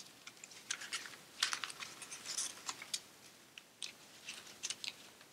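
Copy paper rustling and crinkling as a paper strip is woven over and under through slits in a folded sheet, with irregular crisp ticks.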